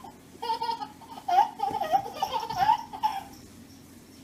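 Baby laughing in short, high, wavering bursts, going quiet about three seconds in.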